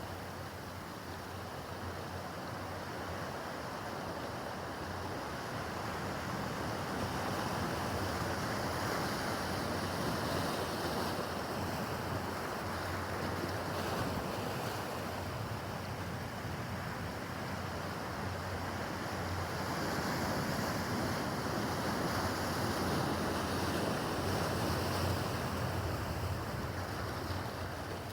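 Choppy harbour water, waves washing and slapping, with wind gusting on the microphone; the noise swells and eases twice.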